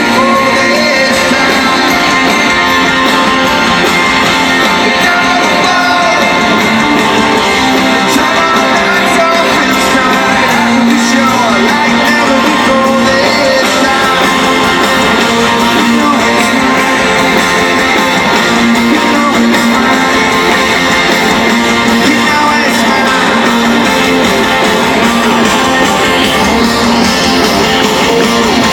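Live rock band playing loudly: strummed electric guitars with singing.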